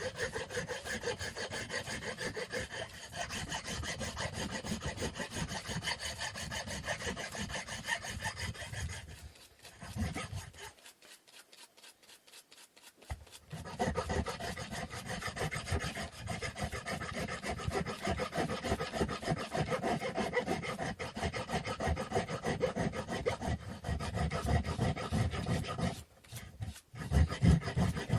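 A wooden stick being sanded by hand, rapid back-and-forth rasping strokes. They stop for a few seconds midway, then resume, with a short pause near the end.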